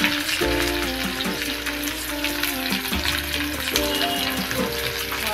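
Chopped red onions sizzling as they fry in hot oil in a kadai, under steady background music.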